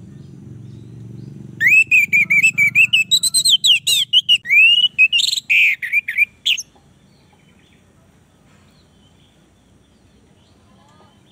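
Orange-headed thrush singing a fast, varied run of high whistled notes for about five seconds, starting a second and a half in, then falling silent. A faint low hum is heard before the song.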